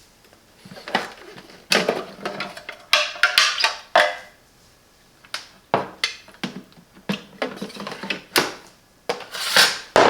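Handling clatter: an irregular run of knocks, clicks and short scrapes of hard objects being moved and set down, busiest about a second in and again over the second half.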